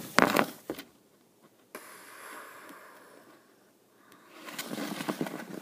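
Breathy puffs and rustling handling noise right at a handheld phone's microphone, with a steady hiss in the middle and a rougher patch of rustling near the end.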